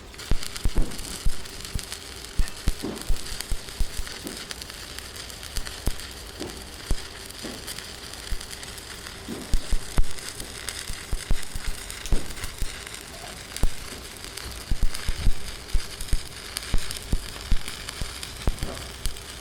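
Irregular knocks and thumps, many in quick clusters, over a steady crackling hiss.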